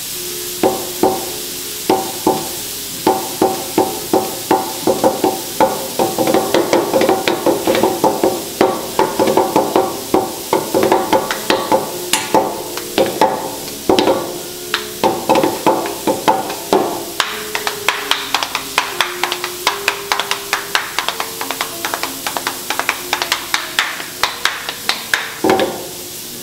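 Two wooden-handled seasoning shakers clacking against each other and on a steel teppanyaki griddle in a quick, busy rhythm of sharp clicks as the chef seasons bean sprouts with a showy flourish. The sprouts sizzle faintly on the hot plate underneath.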